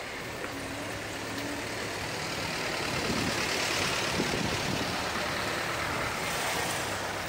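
A motor vehicle running, its noise swelling to a peak about halfway through and then easing off, over a steady low hum.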